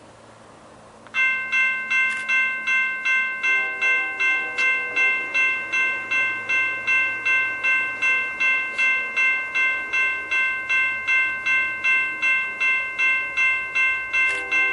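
Railroad grade-crossing bell starting to ring about a second in, struck steadily about three times a second, as a train approaches. A train horn sounds faintly underneath from a few seconds in.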